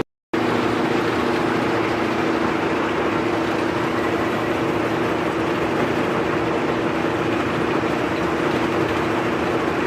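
Steady running hum of a machine, broken by a split-second gap to silence right at the start.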